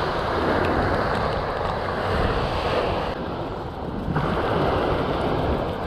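Fish fillets sizzling as they are laid into a hot grill pan of butter and oil: a steady hiss that turns briefly duller about three seconds in.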